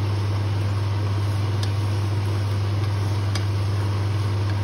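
Steady low electrical hum from a kitchen appliance running, with a faint hiss over it and a few light taps of a wooden spatula against the pot as the stew is stirred.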